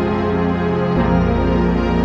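Background music of held, sustained chords, the low notes changing to a new chord about a second in.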